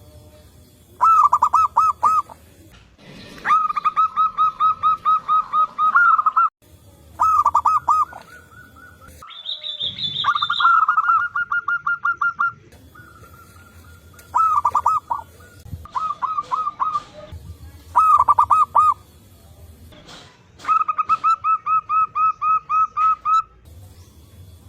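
Zebra doves (local perkutut) cooing in repeated bouts of quick staccato notes, several birds answering one another. A short higher-pitched call comes about ten seconds in.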